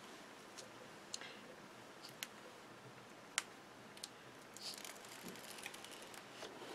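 Backing liner being peeled off foam adhesive tape strips: a few faint ticks, the sharpest about halfway through, and a soft rustle a little later.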